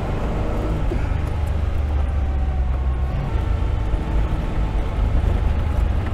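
Austin-Healey 3000's straight-six engine running steadily at low speed, heard from the open cockpit as a low drone, with wind on the microphone and tyre noise mixed in.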